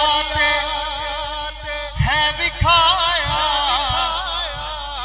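A man singing a devotional manqabat with a drawn-out, wavering melodic line, over music with low drum beats.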